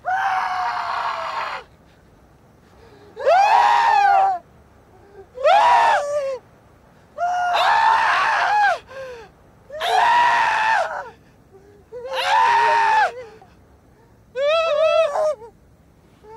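A man wailing in seven loud cries, each about a second long with short pauses between, his pitch wavering and bending within each cry.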